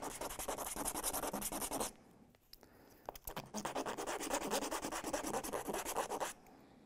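The end of a small 3D-printed PETG cylinder rubbed back and forth in quick short strokes on a scrap of 220-grit sandpaper, a rapid scratching that roughens the surface for gluing. It stops for about a second near two seconds in, then goes on again and stops just before the end.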